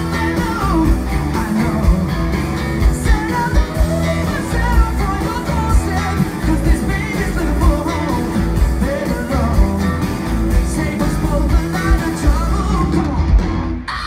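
Live rock band with a male lead vocal and electric guitars playing a song. The music stops abruptly near the end.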